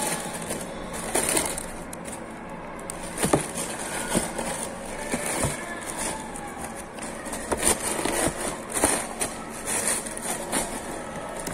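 Tissue paper rustling and crinkling as it is pulled about inside a cardboard shoe box, with irregular scrapes and taps from handling the box.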